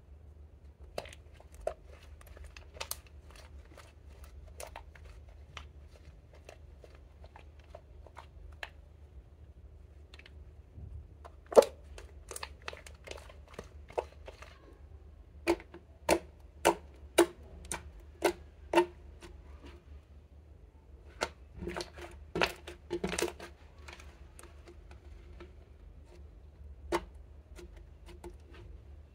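Hands kneading, squeezing and pressing a ball of glossy clear slime mixed with makeup, giving irregular sharp pops and clicks. They come sparsely at first, then in a run of louder pops a dozen seconds in, the loudest of all at its start, and another cluster later.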